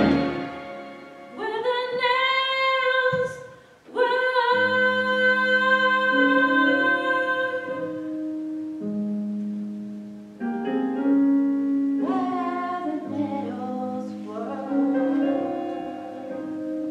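Small church choir singing a slow piece in long held notes over a quiet instrumental accompaniment, with a short break about three seconds in.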